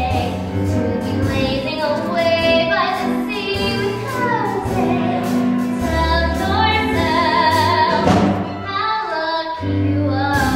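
A voice singing a melody over instrumental accompaniment, with long held notes.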